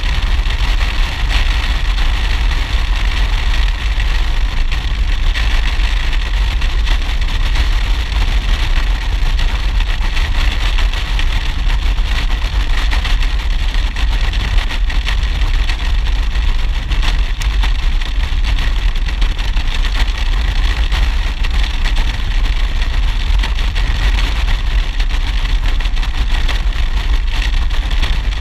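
Motorcycle cruising at a steady road speed, its engine running under a constant rush of wind buffeting the helmet-mounted microphone.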